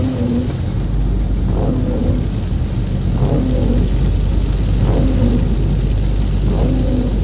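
Inside a car's cabin driving through heavy rain: a steady low rumble of engine and tyres on the wet road with rain on the car, and the windshield wipers sweeping about every second and a half, each stroke giving a brief tone.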